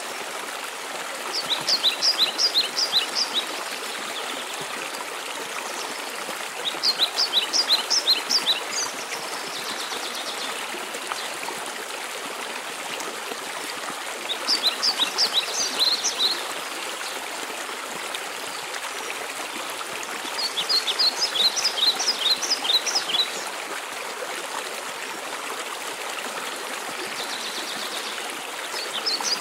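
Steady rush of a waterfall. A songbird sings a short phrase of quick, high notes about every six to seven seconds, five times, each phrase louder than the water.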